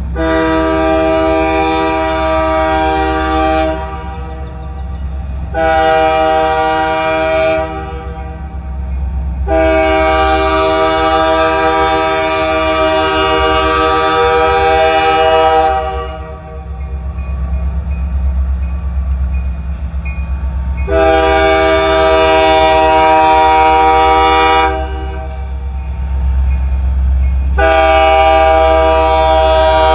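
Union Pacific freight locomotive's multi-note air horn blowing a series of blasts as the train approaches: a long one, a short one, a long held one, then another long one and a last one starting near the end. A steady low rumble of the oncoming train runs underneath. The blasts are a warning for the grade crossing ahead.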